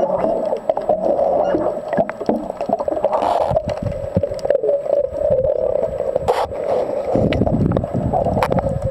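Muffled underwater sound beneath a boat hull: a steady hum with scattered clicks and knocks, and a low rumble from about seven seconds in.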